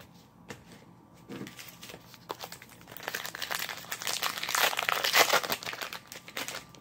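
Wrapper of a baseball card pack crinkling as it is handled and opened, the crinkling building up in the second half and loudest near the end.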